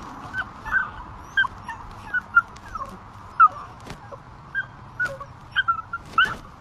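Puppy whimpering in a string of short, high-pitched cries, over a dozen in a row, as if hurt: the puppy is faking an injured leg.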